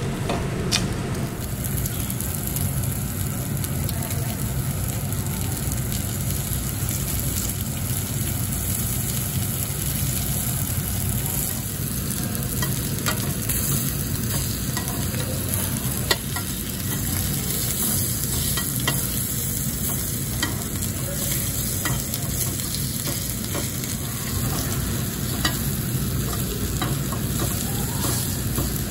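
Shrimp with garlic sizzling steadily on a tabletop barbecue grill's slotted metal grate, over a low steady hum. Now and then there are short clicks and scrapes of metal tongs against the grate.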